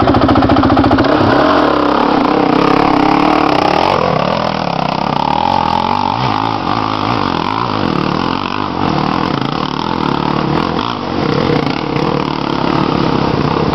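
Dirt bike engines revving hard on a steep climb, the revs rising and falling again and again. The engine is loudest in the first few seconds.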